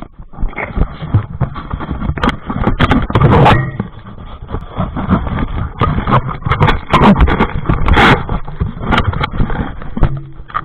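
Handling noise from a wearable action camera being moved about: irregular rubbing, scraping and knocking against its microphone, with loud bumps every second or so.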